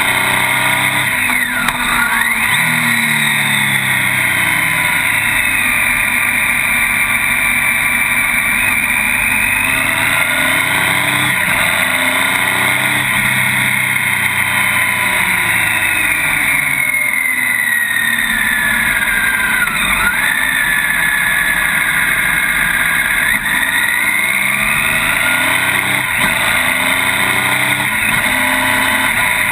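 Motorcycle engine running on the move, its pitch falling and rising again several times as it slows and revs back up, over a steady rush of wind and road noise.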